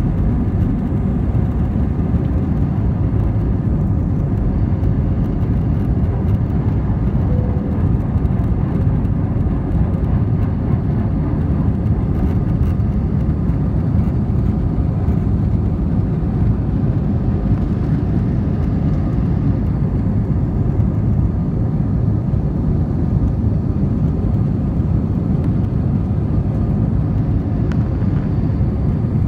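Airbus A320 cabin noise at takeoff power: the steady low rumble of its IAE V2500 turbofans and rushing air, heard inside the cabin at a window seat, running on unchanged from the end of the takeoff run into the initial climb.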